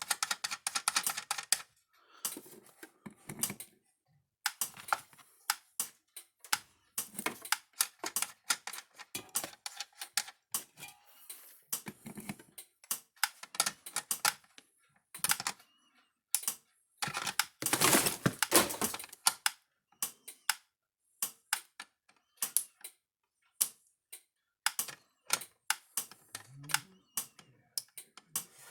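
Long run of sharp, irregular clicks and clacks, sometimes in quick clusters and sometimes spaced about a second apart.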